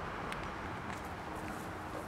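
Steady low outdoor background noise with no distinct events, and a faint thin steady hum coming in during the second half.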